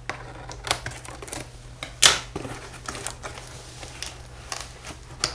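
Cardboard shipping box being cut and pried open: scattered clicks and short scrapes of tape and cardboard, with one louder tearing scrape about two seconds in.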